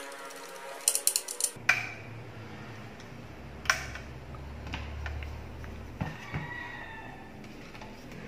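Scattered clicks and knocks of small hard parts being handled, with a quick run of clicks about a second in, over a low hum that comes in suddenly soon after.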